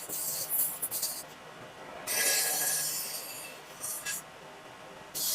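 Rasping rubbing strokes on a wooden cutting board: a quick run of short strokes, then a longer stroke of about a second starting about two seconds in, and a brief one near the end.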